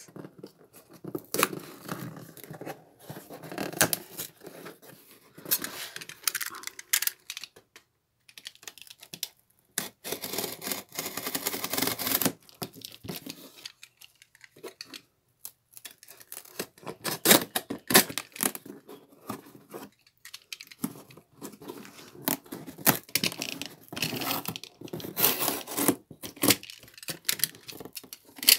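Cardboard shipping box being cut and torn open with a utility knife: irregular scraping, ripping and sharp taps, with a longer tearing stretch about ten seconds in.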